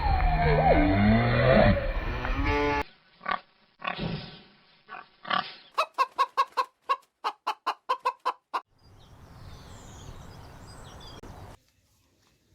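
Farm animals heard in short cut-together clips. The loudest is a call sliding up and down in pitch at the start. The clearest is chickens clucking, a quick run of short clucks at about five a second in the middle, followed by a soft hiss.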